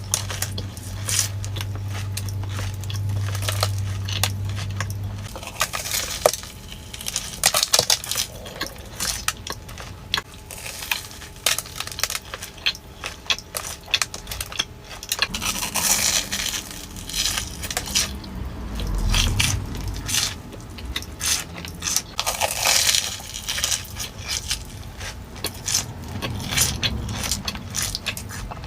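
Close-miked crunching and chewing of a fried corn dog: a dense run of crisp, crackly clicks, with a few louder crunchy bites.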